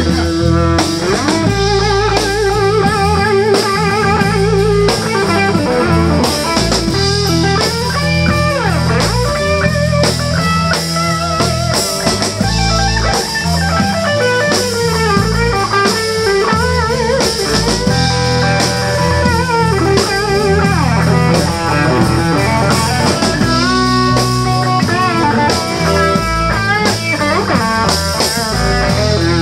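Live blues band playing: electric guitars, bass guitar and drum kit, with a lead line that bends and wavers in pitch over a steady bass and drum groove.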